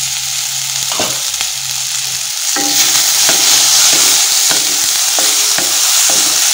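Mixed vegetables sizzling in oil in a metal kadhai while a wooden spatula stirs them, scraping and knocking against the pan in repeated strokes; the sizzle gets louder about two and a half seconds in as the stirring gets going.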